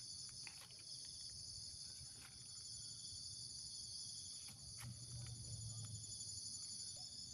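Steady high-pitched chorus of insects, with a few faint scattered clicks.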